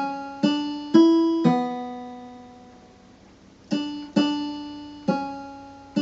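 Electronic keyboard set to a steel-string guitar voice, playing a slow melody one note at a time. Each note is struck and rings away: four notes, a pause of about two seconds, then three more.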